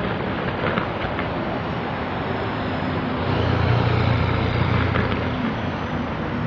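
Steady rumbling roar with a low hum that swells about three seconds in and fades again, over a few faint pops and crackles from distant low-level fireworks.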